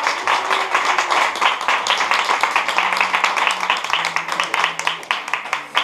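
Applause from a small group of people clapping their hands in a room, many quick claps overlapping.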